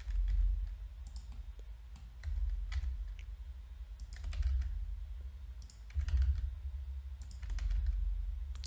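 Computer keyboard keystrokes and mouse clicks, a scatter of short irregular clicks, over a low rumble that comes and goes.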